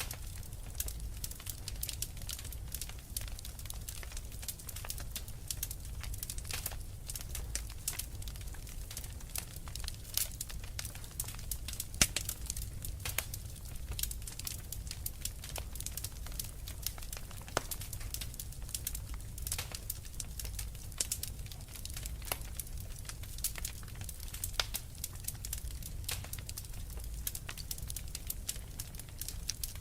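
Wood fire crackling in a fireplace: a dense, irregular run of small pops and snaps over a low steady rumble, with one louder pop about twelve seconds in.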